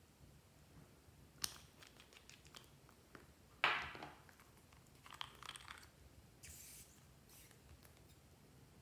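Small plastic paint and glitter-glue bottles handled over trays of slime: scattered faint clicks and rustles, with a louder short crackle about three and a half seconds in and a few soft scrapes after it.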